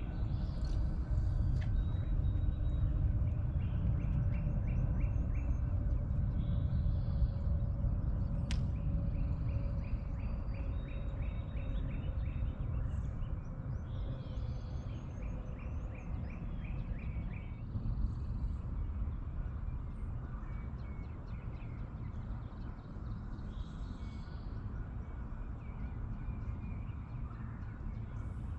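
Birds singing, repeating short rapid trills again and again, over a steady low rumble.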